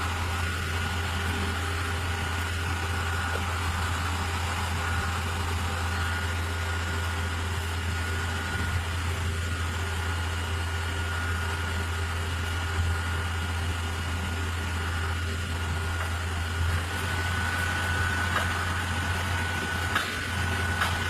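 Concrete pump truck's engine running steadily at idle, with a thin steady high whine above it that grows a little stronger near the end.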